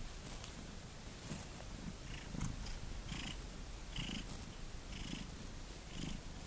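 Elderly domestic cat purring while being stroked on the head, the purr swelling and fading in a steady rhythm with its breaths, a little under once a second.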